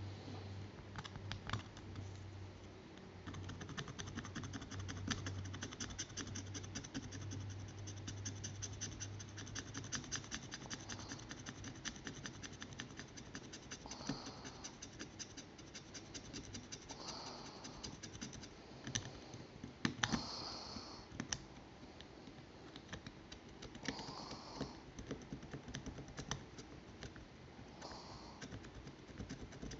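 Scratching of a tool scraping the green coating off a printed circuit board: a fast run of fine scratches, then separate short scuffs every few seconds.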